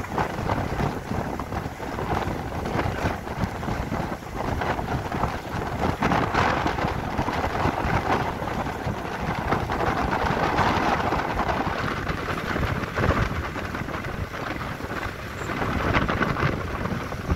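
Wind buffeting the microphone: a steady, rough rushing noise, with open sea water beneath it.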